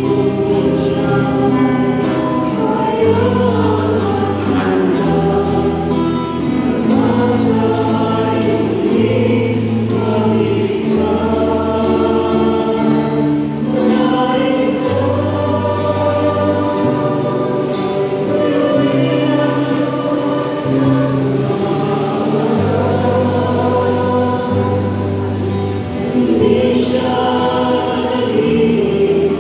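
A small mixed choir singing a hymn together with guitar accompaniment, over a line of sustained bass notes that change every second or two.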